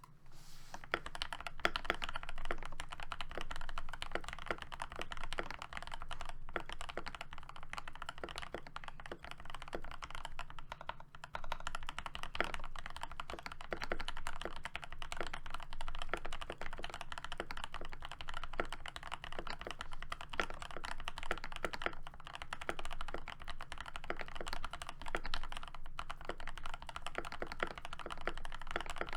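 Keychron V1 mechanical keyboard typed on in a steady, continuous stream of keystrokes. It is fitted with hand-lubed, filmed Gateron Oil King linear switches, Poron switch pads, lubed stock stabilizers and Cherry-profile dye-sub PBT keycaps.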